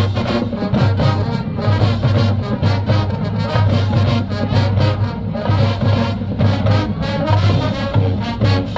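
Marching band playing a loud brass tune with a steady drum beat, trombones and trumpets to the fore.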